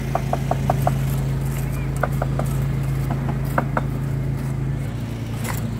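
A small engine of the site's concrete machinery runs steadily at a constant pitch, its note changing about five seconds in. Short, light clicks come over it in a few quick runs.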